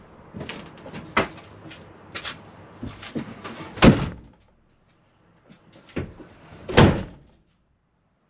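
The two rear doors of a Peugeot Boxer van are slammed shut one after the other, about three seconds apart, heard from inside the empty cargo area. Lighter knocks and bumps come first.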